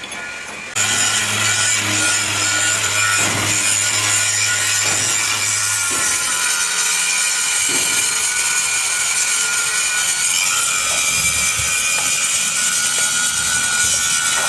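Angle grinder working on steel, starting abruptly about a second in and running steadily with a high whine over a harsh hiss.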